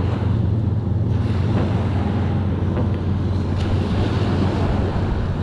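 Wind buffeting the microphone in a steady low rumble, with surf washing on the shore behind it.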